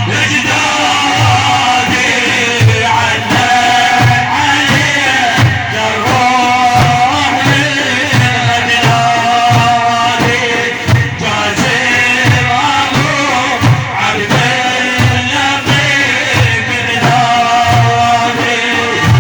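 Middle Eastern devotional praise-song music: a steady, evenly spaced drum beat under a held melodic line.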